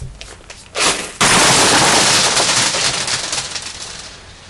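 Crinkly candy wrapper crumpled right against the microphone: a loud, dense crackle that starts suddenly about a second in and dies away over the next three seconds.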